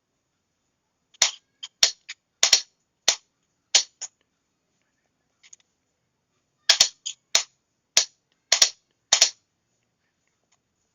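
Morse key clicking as code is sent by hand: two runs of sharp clicks, each a press or release of the key, separated by a pause of a couple of seconds.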